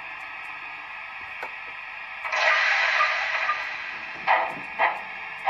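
Sound decoder of a Märklin 55077 gauge 1 BR 78 steam locomotive model playing steam sounds through its loudspeaker as the model starts moving: a steady background hiss, a longer hiss of steam about two seconds in, then three separate chuffs near the end, timed to the wheels by a Hall sensor.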